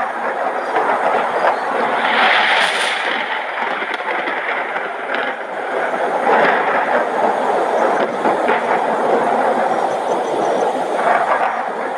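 Thunderstorm noise: a loud, steady rushing roar with some crackle, swelling briefly about two seconds in.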